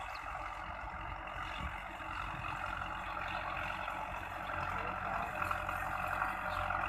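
Belarus 510 tractor's four-cylinder diesel engine running steadily under load while drawing a laser land leveler through dry soil. It grows louder about two-thirds of the way in as the tractor comes closer.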